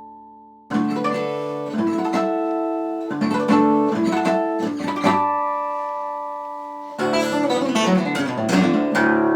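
Music: a plucked string instrument playing ringing chords. The chords start suddenly just under a second in, then come every second or two, with a quick run of rapid strums in the last couple of seconds.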